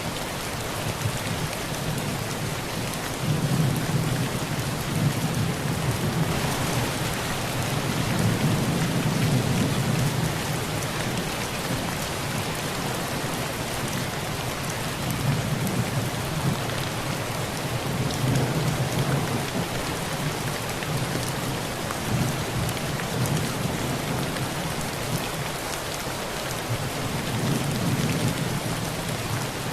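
Heavy rain pouring steadily on a tin roof, with low rolling thunder that swells and fades several times.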